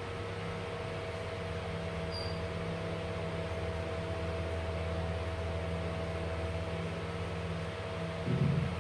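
A steady mechanical hum with several held tones over a soft hiss, with a brief low thump near the end.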